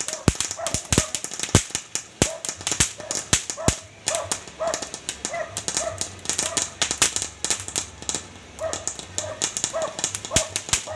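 Fountain firework spraying sparks, with many irregular sharp crackling pops. A dog barks repeatedly in short barks alongside it.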